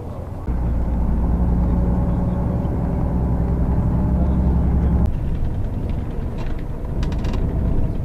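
Engine and road rumble heard from inside a moving vehicle, heavier for the first few seconds and easing about five seconds in, with a few light rattles near the end.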